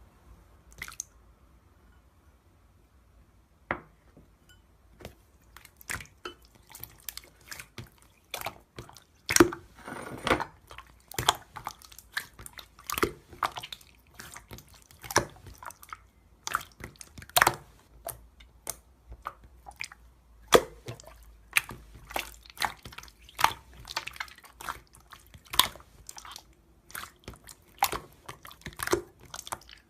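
Close, wet chewing and crunching: irregular sharp crackles and squelches that start sparsely a few seconds in and come thick and fast from about nine seconds on.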